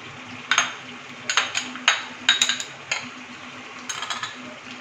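Metal spatula scraping and tapping against a pan in a string of sharp, irregular clinks, with a steady sizzle of gravy cooking underneath: onion-and-cashew paste being scraped off the spatula into chicken in the pan.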